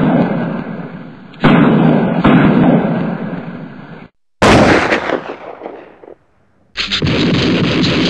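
Mortar blasts one after another: a sudden bang at the start, another about a second and a half in, and a sharper one after a short silence past the halfway point, each dying away in a long rumbling tail. Near the end a steady, dense rush of noise sets in.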